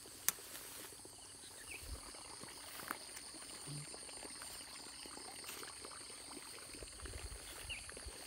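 Steady high-pitched insect chirring, in two even bands. There is a sharp click just after the start and low rumbles of phone handling near the end.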